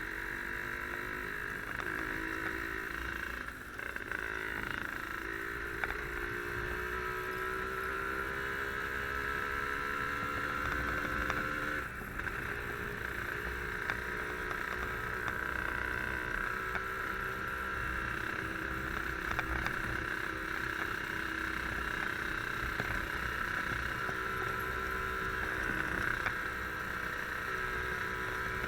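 Yamaha RD135 two-stroke motorcycle engine running under way, its pitch climbing slowly through a gear and dropping suddenly about twelve seconds in, then climbing again, with steady wind and road noise.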